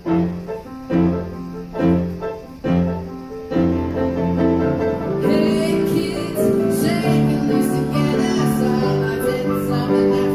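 Live piano playing, with chords struck about once a second, then a held chord. About five seconds in, a singer comes in over the piano accompaniment.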